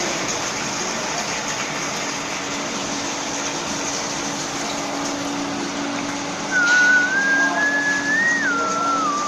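Liquid streaming from the outlet taps of a plate filter press into a collecting trough, with the steady hum of its feed pump motor. About six and a half seconds in, a loud whistle comes over it, wavering in pitch and then falling.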